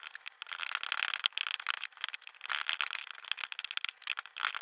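Hands working a ball of dough on a floured counter, with a continuous crackly, crinkling rustle from a thin plastic glove.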